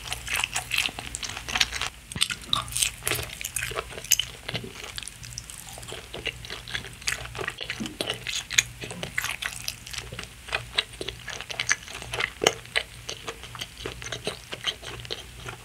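Close-up chewing of a mouthful of fried sausage and rice-cake skewer (sotteok) coated in Bburinkle seasoning: an irregular run of small wet clicks and crackles from the mouth, several a second.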